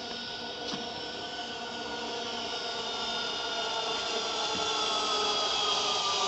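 Zipline trolley pulleys whining along the steel cable as a rider comes in: a steady hum of several tones that grows steadily louder and slowly drops in pitch.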